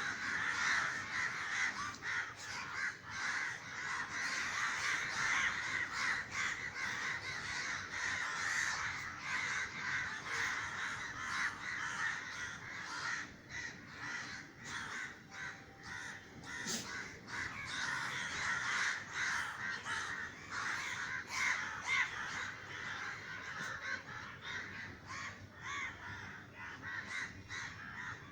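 A large flock of crows cawing constantly, many harsh calls overlapping one another. The flock is calling in alarm after being startled by a sudden loud bang.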